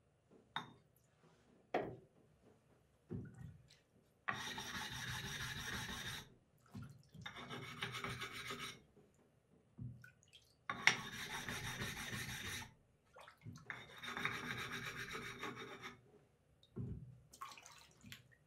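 A wet whetstone rubbed with a second stone, stone grating on stone, in four spells of about two seconds each. A few light knocks come between them as the stones are handled.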